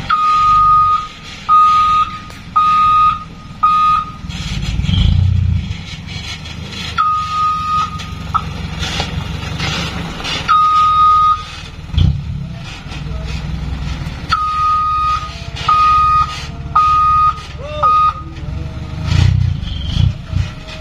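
Loaded dump truck reversing, its reverse alarm giving loud, steady high-pitched beeps in runs of three or four with pauses between, over the low, steady running of its engine.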